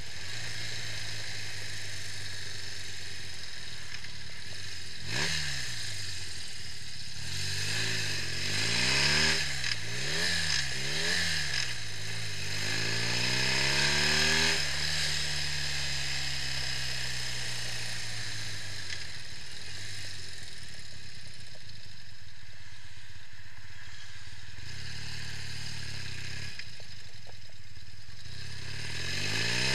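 Customized BMW R65's air-cooled flat-twin engine on a road run: a quick rev about five seconds in, then the pitch climbs and drops several times as it pulls through the gears, rises once more and slowly winds down to a steady low run, with another rev right at the end.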